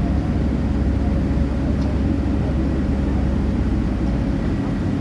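Steady low engine drone of the car ferry's engines, with a constant hum over a deep rumble that shifts slightly about four seconds in.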